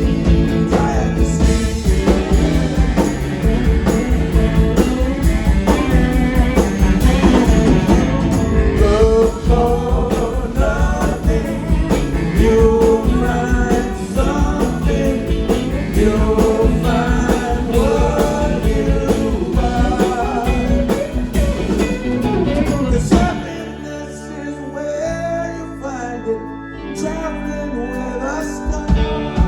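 Live rock band playing with a singer, guitar and drum kit. About two-thirds of the way in, the drums and bass drop out, leaving quieter held chords for the last few seconds.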